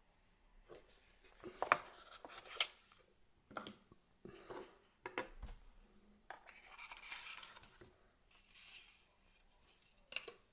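Hands handling a precision screwdriver and a small cardboard box on a wooden tabletop. First comes a series of sharp clicks and taps. Then cardboard and paper scrape and rustle as the box lid is prised open and the manual is slid out, and one more click comes near the end.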